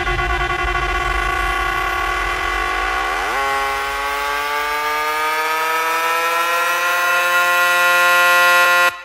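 Hard dance DJ mix in a breakdown: the bass drops out and a sustained synth chord slowly rises in pitch like a siren, building tension. Chopped, stuttering synth stabs cut in at the very end.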